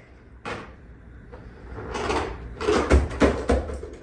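Hard plastic robot vacuum knocking and clattering as it is pushed and bumps at the stairs: one knock early, then a building clatter with several sharp knocks about three seconds in.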